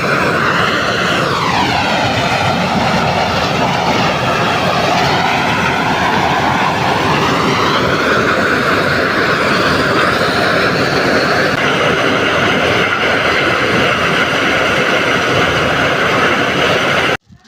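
Loud engine-driven machine running under load, its pitch dropping over the first couple of seconds, rising again a few seconds later and then holding steady, cutting off abruptly near the end.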